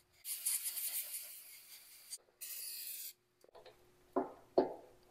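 Hissing in two spells, a longer uneven one and then a short steady one that starts and stops sharply, as rust stopper is applied to the drive motor's tapered shaft. Then a few metal clunks as the cast sprocket hub is slid onto the shaft, the loudest near the end.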